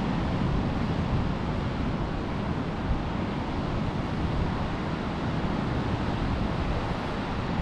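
Wind buffeting the microphone in a steady rumble, over the wash of surf breaking on the beach.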